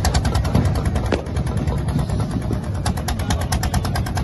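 Fishing boat engine running steadily with a rapid, even knocking.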